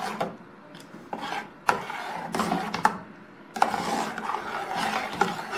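A metal spoon stirring thick porridge in a steel pot, scraping the pot in uneven strokes with a few clinks against its side.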